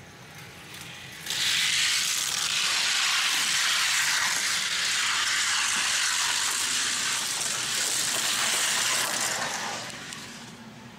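1:64 die-cast race cars rolling down a gravity race track: a steady rushing hiss and rattle of small wheels on the track that starts abruptly about a second in and fades out near the end.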